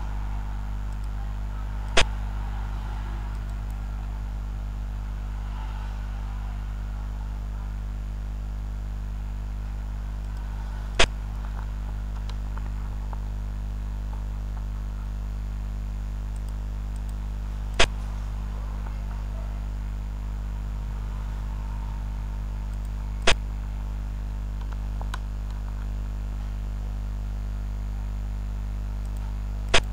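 Steady low electrical hum, with five sharp single clicks spaced several seconds apart: the piece-move sound of a xiangqi board program, one click as each piece is set down.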